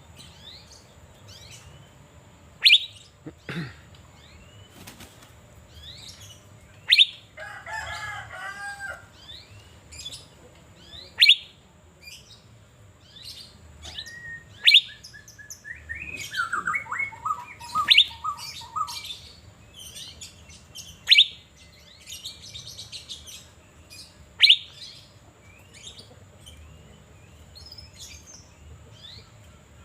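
Asian fairy-bluebird (cucak biru) singing in full voice: a loud, sharp, falling whistle repeated about every three to four seconds, with softer chirps and short warbling phrases in between.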